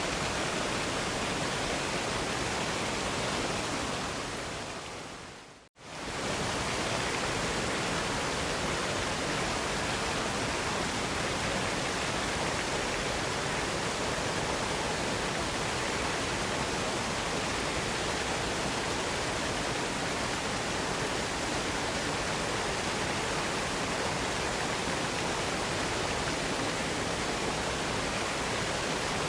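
Steady rushing of a waterfall. About five seconds in it fades out to silence for a moment and then swells straight back in.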